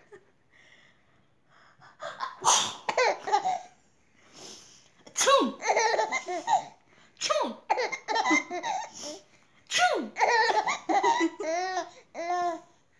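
A mother's fake sneezes, each followed by her baby girl's bursts of laughter, repeated several times, with a run of quick giggling pulses near the end.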